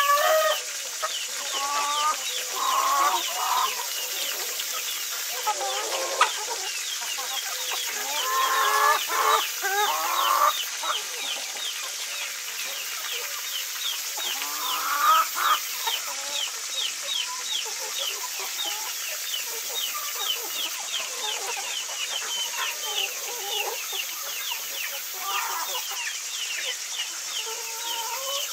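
Chickens clucking and calling among themselves, in short irregular bouts that come louder now and then. Behind them runs a fast, even high chirping, several strokes a second, over a steady hiss.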